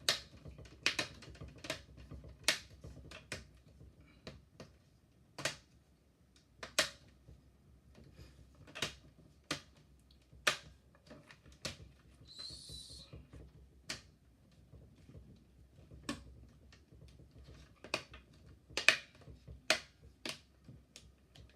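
Sharp plastic clicks and taps at irregular intervals, roughly one a second, from hands working on a laptop's plastic case and keys, with a brief high hiss about twelve seconds in.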